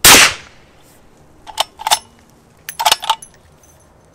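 A single suppressed rifle-cartridge shot from a 375 Raptor pistol fitted with an AB Suppressors Raptor titanium suppressor, firing a supersonic 270-grain soft point: a sharp crack that dies away in under half a second, with echo off the hills. About one and a half and again about three seconds in come two short runs of metallic clicks and clinks.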